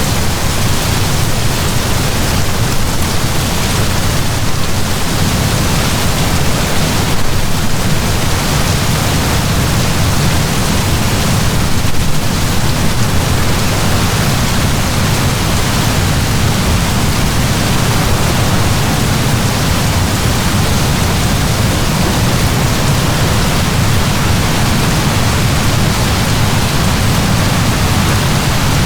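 Heavy rain falling in a steady downpour, an even, unbroken hiss with a strong low rumble.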